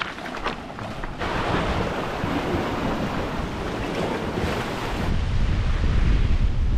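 Ocean surf washing against lava rocks, with wind buffeting the microphone; a few light clicks in the first second, and the wind rumble grows heavier for the last couple of seconds.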